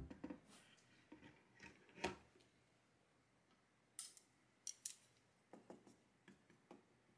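Wooden chopsticks stirring miso soup in a wooden bowl: soft, scattered taps and clicks against the bowl. The sharpest tap comes about two seconds in, with a few quick clicks after the middle.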